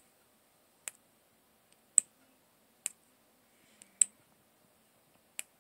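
Switch of a Tacfire tactical rifle light being clicked repeatedly, about once a second. The sharp clicks alternate louder and softer.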